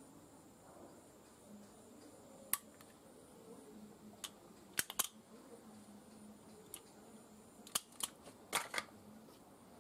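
Optical fibre cleaver (Fujikura CT-06) being worked to cleave bare fibre: a series of sharp, short clicks and snaps as its lid and clamp close and open and the blade cuts, several coming close together around the middle and again near the end.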